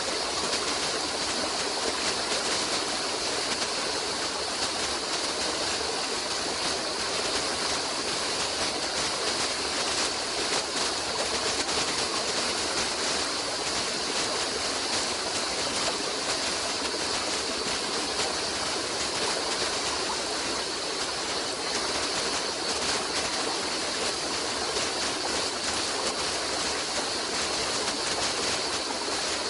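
Running water of a stream flowing with a steady, even rush.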